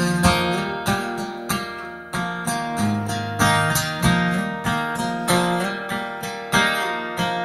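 Solo acoustic guitar strummed in a steady rhythm, each chord ringing on between strums.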